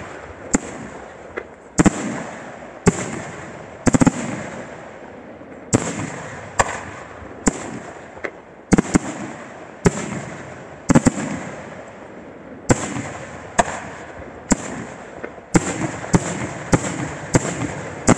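Aerial firework shells bursting one after another, a sharp bang about once a second, each trailing off before the next. The bangs come closer together near the end.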